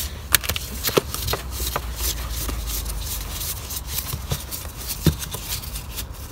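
Screwdriver undoing a T20 Torx screw on a car's air filter housing: irregular small clicks and scrapes of the tool and hand against the parts, over a low steady hum.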